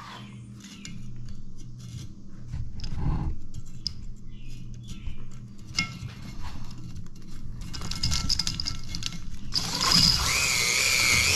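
Metal clicks and knocks as a stone cylinder hone is worked into the bore of a Yamaha golf cart engine block. About ten seconds in, the drill driving the hone starts suddenly and runs steadily with a wavering whine, honing the oiled cylinder to clear debris from the bore.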